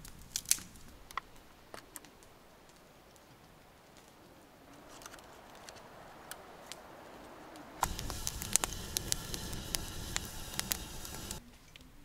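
Campfire crackling, with scattered sharp pops; a louder stretch of dense crackling starts abruptly past the middle and cuts off suddenly about three and a half seconds later.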